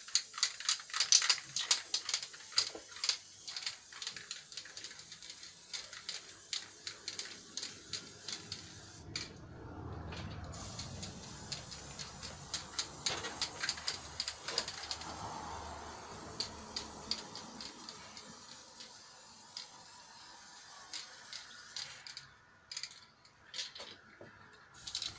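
Aerosol spray-paint can being shaken, its mixing ball rattling fast for about nine seconds, then sprayed in a long steady hiss, with further short bouts of rattling near the end.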